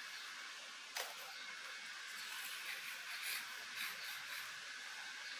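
Soft rustling of Nepenthes pitcher plant leaves being handled and arranged, over a steady hiss, with a single sharp click about a second in.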